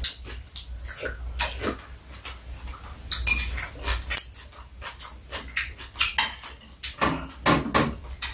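Metal spoons and chopsticks clicking against ceramic bowls, with slurping and chewing of soup and rice, in many short, irregular clicks and a few longer slurps about seven seconds in.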